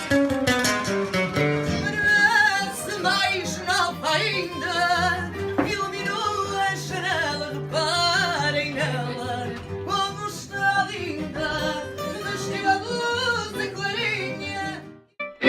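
A voice singing a wavering, ornamented melody over plucked guitar accompaniment. The music cuts off abruptly near the end.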